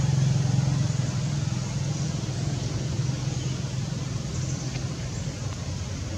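A motor engine running steadily with a low hum, slowly fading.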